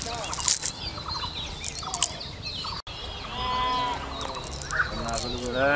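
Domestic fowl clucking in short, quick calls, with a brief dropout just under halfway and longer drawn-out animal calls afterwards.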